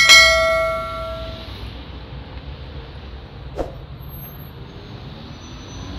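A bell-like chime from a subscribe-button animation sound effect rings out and fades over about a second and a half, over the steady rumble of city traffic. A brief sharp sound cuts through the traffic about three and a half seconds in.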